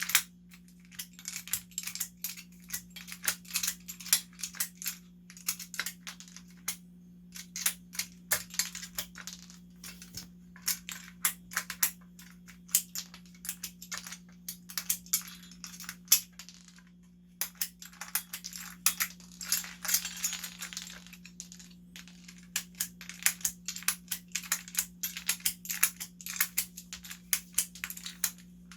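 Cherry-profile keycaps being pulled off a mechanical keyboard's switch stems in quick succession: a dense, irregular run of sharp plastic clicks and clatter, pausing briefly about two-thirds of the way through. A steady low hum sits underneath.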